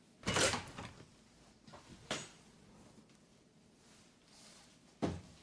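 A door being handled as it is opened: a loud clatter at the start, a click about two seconds in, and a knock near the end.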